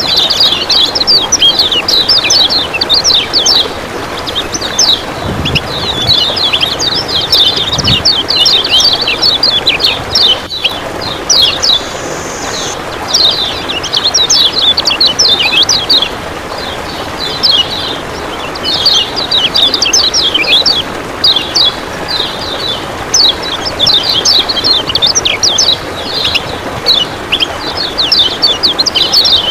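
Kecial kuning white-eye (pleci) singing fast, chattering 'ciak ciak' trills in phrases of one to three seconds with short gaps, over a steady rush of running water.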